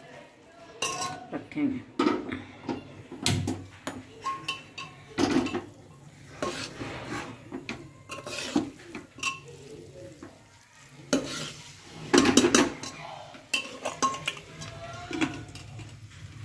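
Metal spoon stirring pasta in an aluminium pressure cooker, with irregular clinks and scrapes against the pot's sides.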